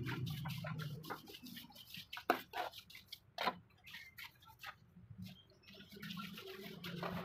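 Trowel scraping and tapping as wet cement mortar is scooped from a pan and spread over a mould: a string of short scrapes and clicks, two of them louder about two and three and a half seconds in.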